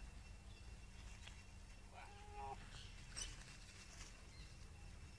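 Faint, near-silent background with a steady low hum. A short low-pitched call comes about two seconds in, and brief, faint high chirps follow a second or two later.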